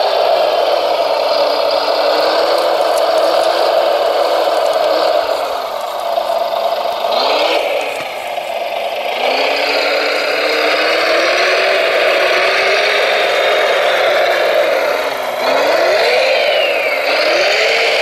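Radio-controlled scale Volvo L250G wheel loader working: its motors and hydraulic pump whine, rising and falling in pitch as it lifts, dumps and drives, over a steady rattle of gravel.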